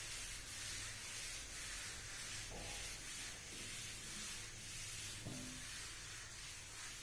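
A chalkboard duster being wiped back and forth across a chalkboard, a scrubbing hiss that swells and fades with each stroke.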